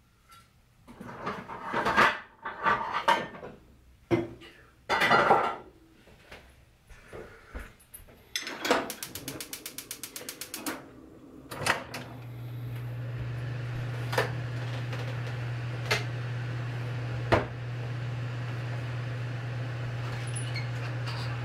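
Metal clatter of a frying pan being handled and set on a gas stove grate, then the stove's igniter ticks rapidly for about two seconds until the gas catches. The burner then burns with a steady low hum and hiss, with a few light clicks over it.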